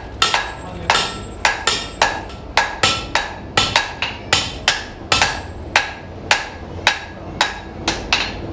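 Blacksmith's hand hammer striking iron on an anvil in a steady rhythm of about two to three blows a second, each blow with a short metallic ring.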